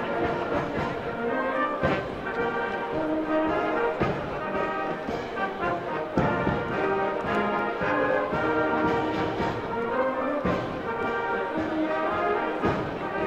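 Marching wind band of trumpets, tubas, baritone horns and clarinets with drums playing a march, with a sharp accent about every two seconds.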